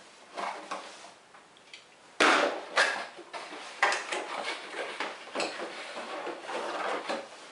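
Parts packaging being handled and opened by hand: irregular rustling and knocks, with a sudden loud one about two seconds in, as a boxed part is unwrapped.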